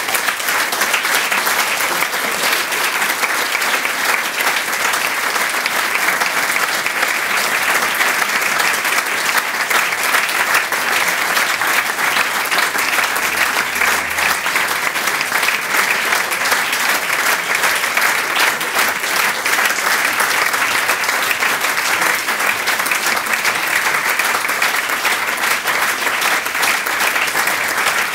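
Audience applauding, a dense and steady clapping from many hands.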